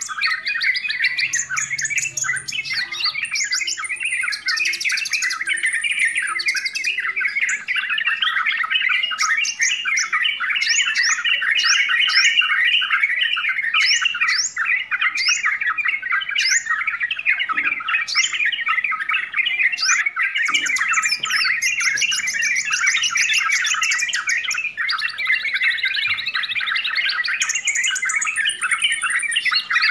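Yellow-vented bulbuls chattering noisily without a break: a dense run of short notes with quick rising whistles over it, and thin high whistled tones now and then.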